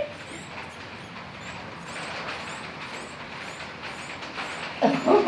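Faint steady hiss with small, faint high chirps, then a short, loud animal call about five seconds in.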